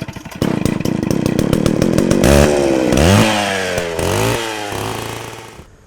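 Small petrol engine firing in rapid ticks, then revving up and down in pitch several times before cutting off abruptly near the end.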